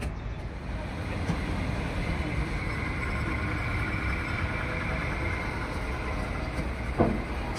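A truck engine running steadily, driving a truck-mounted knuckle-boom crane as it hoists an excavator hydraulic pump, with a faint whine in the middle. A single sharp knock sounds near the end.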